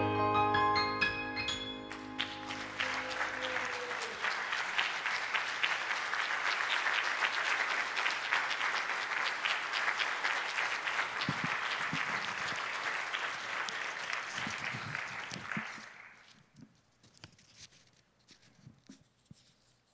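The last chord of an electronic keyboard rings and fades over the first few seconds while a congregation applauds. The applause dies away about sixteen seconds in, leaving only a few faint clicks and knocks.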